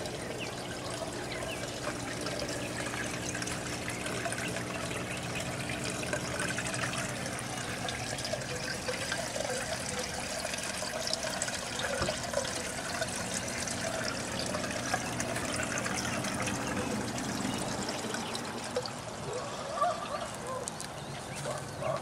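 Water trickling and splashing steadily in an aquaponics grow bed system, over a low steady hum.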